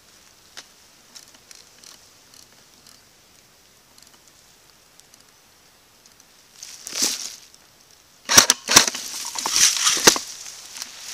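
Dry grass and dead stems rustling and crackling against a camera mounted on an airsoft rifle as it is moved through the vegetation: faint at first, a short rustle about two-thirds in, then louder crackling with several sharp snaps near the end.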